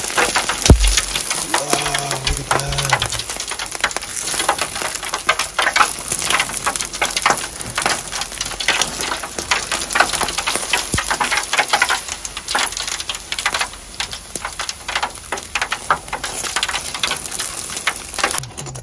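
Hot oil poured over the skin of a fried pork hock, sizzling with dense crackling and popping as the skin blisters and puffs up. The crackling stops abruptly near the end.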